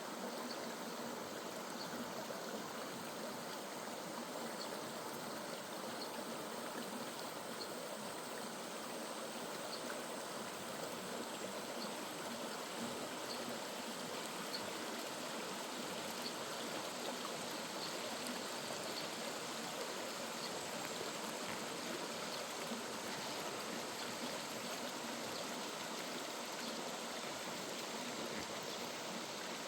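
Mountain valley stream flowing over rocks, a steady, even rush of water.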